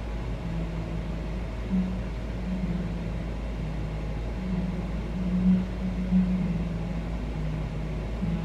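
A low droning hum that steps between two pitches and swells in loudness a few times, over a steady low rumble.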